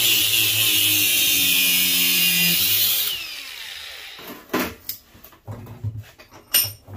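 DeWalt cordless angle grinder cutting into a furnace gas valve to free its copper motors, a loud steady grinding with sparks. About three seconds in it comes off the metal and winds down, then the metal valve knocks and clatters several times as it is handled and set down.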